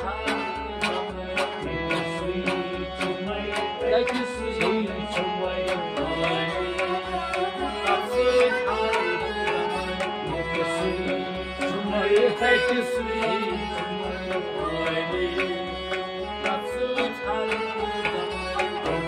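Kashmiri Sufi music, mostly instrumental: tabla keeping a steady beat of about two to three strokes a second under sustained melodic lines.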